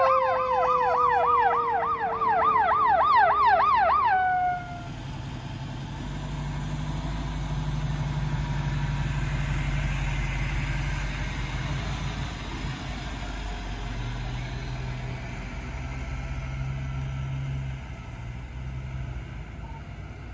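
Emergency sirens on responding fire apparatus: a fast electronic yelp rising and falling about four times a second over a lower tone slowly falling, cutting off about four and a half seconds in. After that, the low steady engine rumble of an ambulance pulling out of its station and driving away without a siren.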